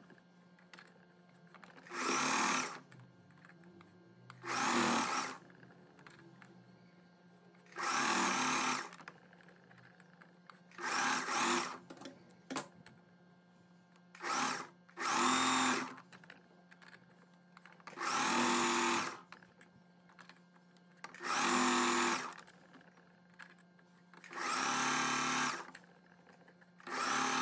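Electric domestic sewing machine stitching a hem in about ten short runs, each under a second, stopping for a couple of seconds between runs while the fabric is guided around the curve.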